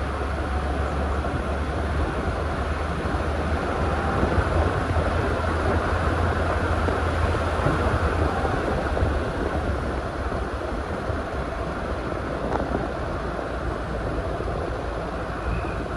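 Steady rumble and hiss of a vehicle driving along a paved road: tyre and engine noise, with a deep low rumble that eases somewhat about halfway through.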